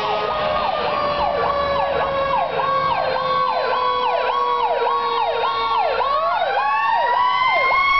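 Responding fire engines' sirens, loud: one siren yelping up and down about twice a second, over a second siren whose pitch slowly falls, then winds back up about six seconds in.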